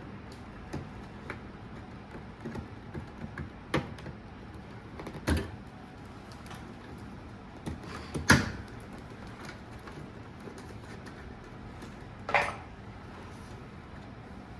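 Scattered clicks and knocks, a handful over several seconds, the loudest about eight seconds in, over a faint steady background noise.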